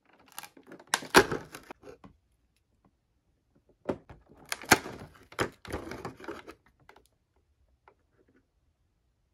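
Sharp clicks and crackling of thin cardboard and plastic packaging as a perforated cardboard door of a toy calendar box is pushed open and small blister-packed mini toys are pulled out and handled, in two bursts.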